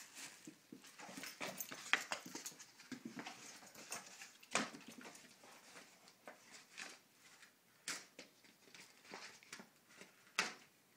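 A German Shorthaired Pointer playing with a ball and a tied-on balloon on carpet: scattered scuffs and knocks, with a few sharper, louder sounds about 2, 4.5, 8 and 10.5 seconds in, and small dog noises in between.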